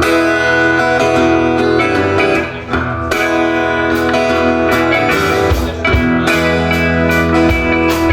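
Live band music without singing, guitar to the fore in a blues-tinged instrumental intro, with sharp strummed or struck strokes coming in about three seconds in.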